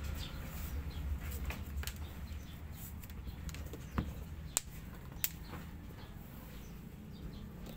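Shoelaces being threaded through the eyelets of a new white leather sneaker: soft rustling and handling noise, with three sharp little clicks around the middle.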